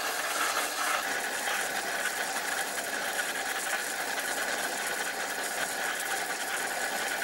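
Metal lathe running with a machine reamer being fed slowly into a bore in a metal block: a steady whirr with the hiss of cutting, holding even throughout.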